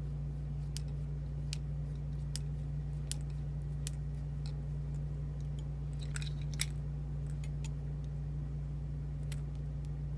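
Light metallic clicks and scrapes of a shim being worked into the back of a padlock to free its core, with a short cluster of clicks about six seconds in, over a steady low hum.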